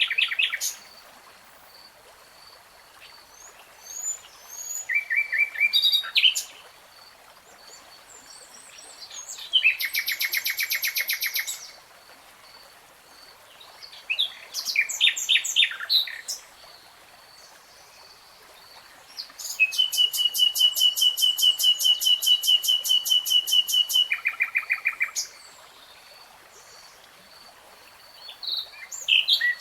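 A songbird singing in separate, varied phrases with short pauses between them. Past the middle comes a long, rapid trill of repeated notes lasting about four seconds.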